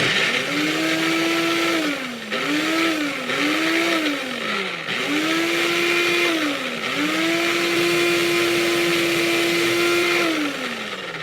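Electric blender grinding ginger and garlic into a paste. The motor runs in five bursts, dipping in pitch between them, the last and longest holding steady for about four seconds before it winds down near the end.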